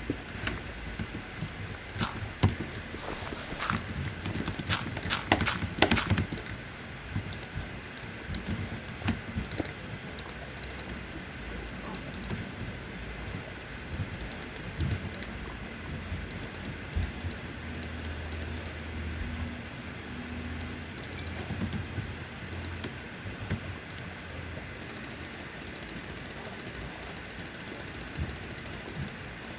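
Many irregular sharp clicks and taps, thickest in the first few seconds, turning into a fast, even run of ticks near the end.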